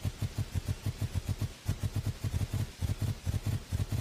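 Animated lion's running footsteps: a fast, even run of low thuds, about seven a second.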